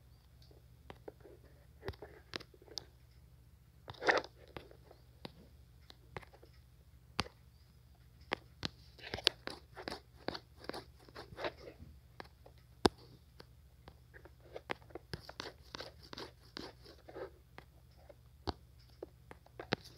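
Irregular crunching and clicking noises close to the microphone, scattered through with the loudest about four seconds in and quick clusters of them later on, over a faint steady hum.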